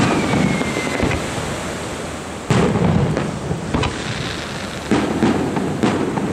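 Aerial firework shells bursting with deep, rumbling booms: the loudest comes about two and a half seconds in, with two more near the end and sharp crackles in between. A thin high whistle, dropping slightly in pitch, stops about a second in.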